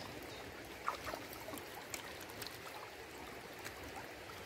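Shallow, fast-flowing river water running steadily over a gravelly run, with a few faint clicks scattered through it.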